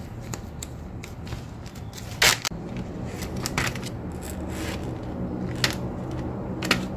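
Scattered light clicks and knocks of things being handled, with one louder scraping rustle a little over two seconds in, over a steady low hum.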